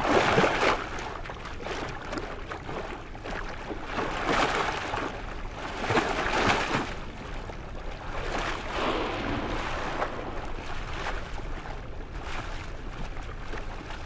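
Water swishing and rushing in repeated surges every few seconds as a young humpback whale swims and sweeps its long flippers just under the surface.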